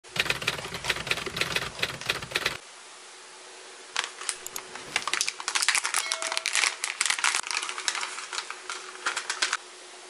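Plastic-foil coffee pouch crinkling and crackling in the hands, a rapid run of crackles from about four seconds in until shortly before the end. The first two and a half seconds hold a similar dense burst of crackling, with a brief lull between the two.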